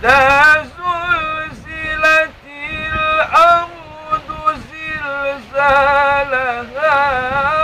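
A man chanting Quran recitation in the melodic tilawah style, with long drawn-out notes, wavering ornaments and slides between pitches, in several phrases with short breaths between them.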